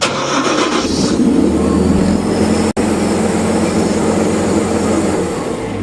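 Everest 870 truck-mount unit starting and running steadily, now that its bad starter signal wire has been replaced. It comes on suddenly, and there is a split-second break about halfway through.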